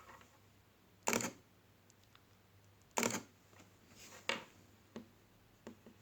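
Fujifilm X-T20 shutter firing three times, each a short sharp click, about two seconds apart, triggered from the plus button of headphones used as a remote release. A couple of fainter ticks follow near the end.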